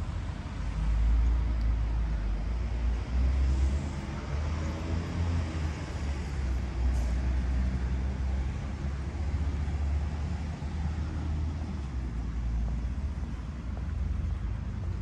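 Road traffic from a nearby town street: a steady low rumble of passing cars.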